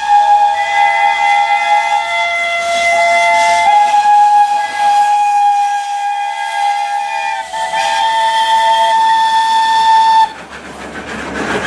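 Several narrow-gauge steam locomotive whistles blowing together at different pitches, long overlapping blasts that start and stop against each other over a steady steam hiss. About ten seconds in the whistles cut off suddenly, leaving a rougher rushing noise.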